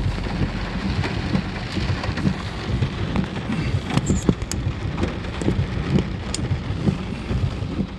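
Heavy rain pounding down, with frequent irregular low thuds and a few sharp clicks mixed in.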